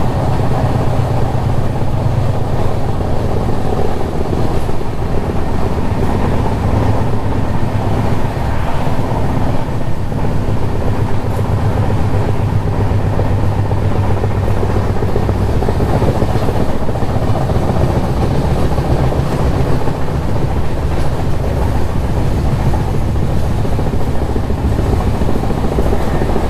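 Moving express train's LHB coach wheels running on the rails, a loud, steady rumble heard at an open coach door.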